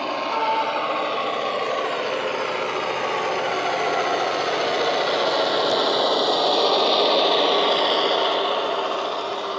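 Irish A Class diesel locomotive model's DCC sound decoder playing the locomotive's diesel engine sound through its small onboard speaker, running steadily as the model approaches and passes. It grows louder to a peak about seven seconds in and fades near the end.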